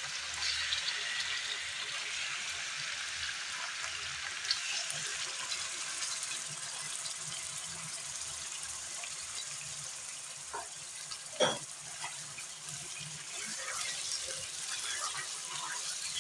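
Raw chicken cubes sizzling in hot oil in a non-stick wok, a steady hiss as they start to fry. Two short sharp knocks about two-thirds of the way through.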